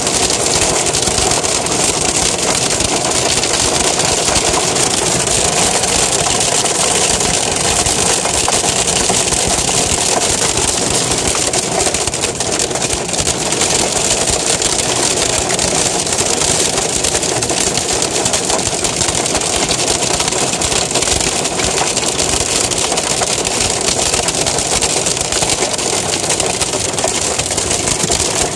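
Hail and heavy rain pelting a car's roof and windows, heard from inside the cabin: a dense, steady clatter of countless small impacts.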